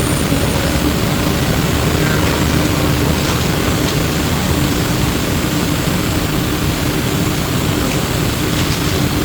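Flyer E902 electric trolleybus under way, heard from inside the cabin: steady road and running rumble with a faint steady hum.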